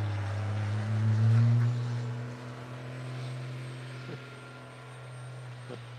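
Cummins diesel engine of a Dodge Ram pickup pulling hard as the truck accelerates through deep snow. The engine rises a little in pitch and is loudest about a second and a half in, then fades steadily as the truck moves away.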